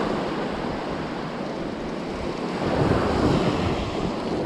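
Surf breaking and washing up a sandy beach, a steady rushing wash that swells louder about three seconds in, with wind buffeting the microphone.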